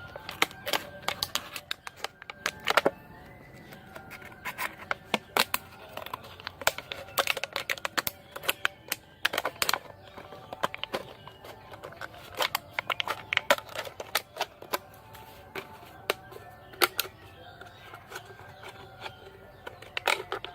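Background music with faint held tones, broken by many sharp, irregular clicks and taps that come in quick clusters.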